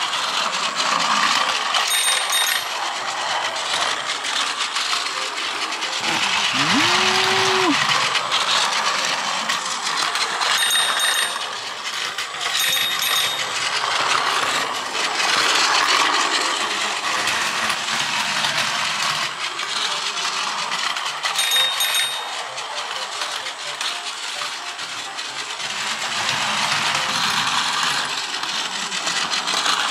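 Plarail toy train, a gold-plated 0 Series Shinkansen pulled by a battery-powered motor car, running at high speed around a plastic track: a continuous whirring gear motor and wheel clatter, swelling and fading as the train passes close by and moves away again.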